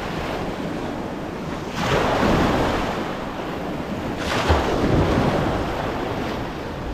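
Small sea waves washing in and breaking close by, swelling twice, about two and four and a half seconds in, over steady wind noise on the microphone.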